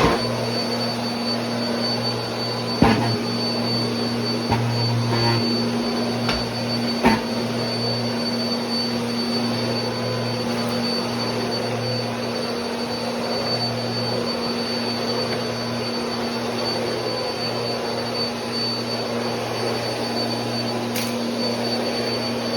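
Bissell PowerForce Compact Turbo bagless upright vacuum running steadily. Two sharp knocks sound over the hum, about three seconds in and about seven seconds in.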